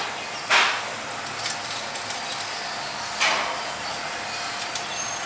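African grey parrot giving two short, harsh squawks, the louder one about half a second in and the other about three seconds in, over a steady background hiss.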